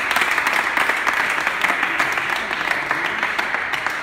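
A small group of people clapping their hands in steady applause, easing off slightly near the end.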